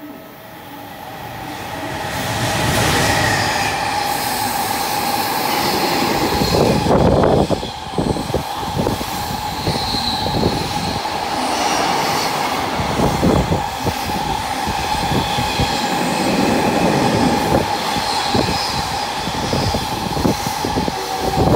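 JR Freight EF210 electric locomotive hauling a container freight train through at speed. The noise swells over the first few seconds as the locomotive arrives, then the wagons rumble past loud and steady. The wheels clatter over rail joints, with a steady ringing tone above the rumble.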